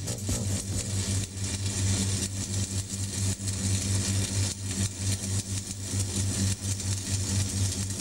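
Steady low electrical hum of workshop machinery, pulsing evenly, over a light hiss.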